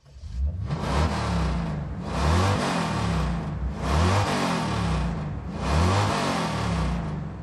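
Car engine revving over and over, about four revs roughly two seconds apart, each rising in pitch and falling back.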